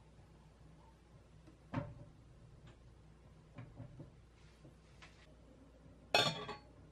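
A spatula knocks once against a stainless steel saucepan, then taps it lightly a few more times. Near the end the pan's stainless steel lid is set on with a short, loud metallic clink.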